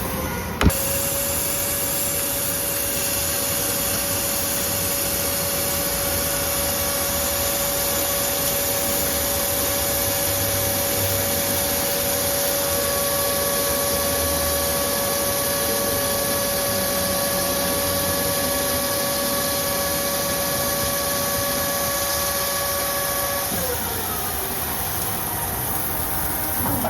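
Machine-shop machinery running: a steady machine whine starts just after a click and holds over a loud, steady noise, then drops in pitch near the end as the machine winds down.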